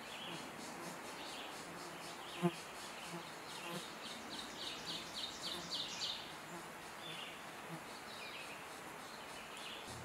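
Pileated woodpecker nestlings giving short, buzzy, insect-like begging calls from the nest hole as the adult feeds them, with a quick run of about seven calls in the middle. A single sharp knock sounds about two and a half seconds in.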